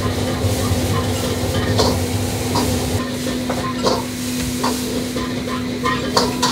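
White ceramic Chinese soup spoon scooping fried rice, clinking and scraping against the ceramic plate about seven times, over a steady hiss and constant hum of a busy restaurant kitchen.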